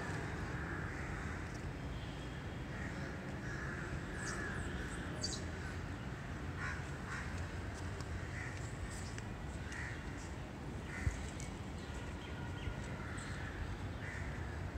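Birds calling over and over in short, separate calls, above a steady low outdoor rumble. There is a single short knock about eleven seconds in.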